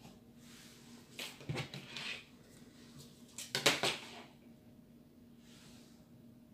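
Sewing tools handled on a cutting table: a few light taps and rustles about a second in, then a louder short clatter a little past halfway as a clear plastic pattern ruler is set down on the fabric. A faint steady hum lies underneath.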